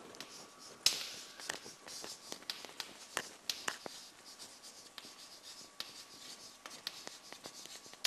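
Chalk writing on a blackboard: a run of short taps and scratchy strokes as letters are written out, the sharpest tap about a second in.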